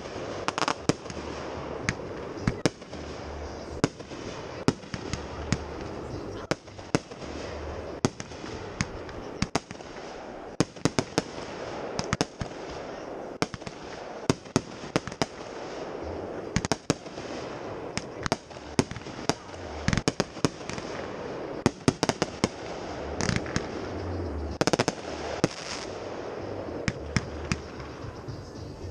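Aerial fireworks bursting: a long run of sharp bangs and cracks at irregular intervals, some coming in quick clusters.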